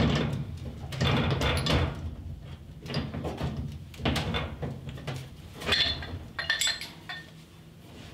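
Washing machine inlet hose coupling being worked loose with a hand tool: a series of short scraping and grating noises, about six, as the threaded fitting is gripped and turned.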